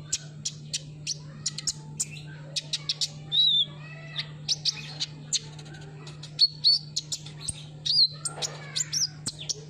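Sunbird singing: a rapid, irregular run of sharp, high chirps with a few short whistled notes mixed in, over a steady low hum.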